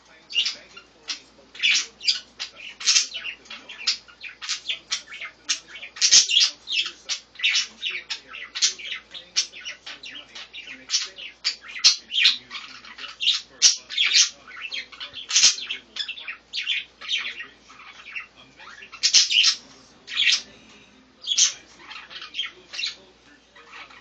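Budgerigars chirping and chattering: a rapid, unbroken run of short, sharp calls, with a few louder squawks among them.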